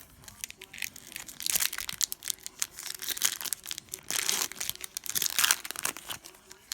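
Foil trading-card pack wrapper crinkling and tearing in the hands, in repeated crackly bursts, densest about one and a half, four and five and a half seconds in.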